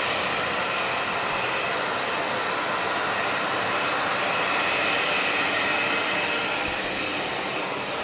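Handheld electric hair dryer running steadily, blowing air onto a dog's fur, with a constant rushing hiss that eases off slightly near the end.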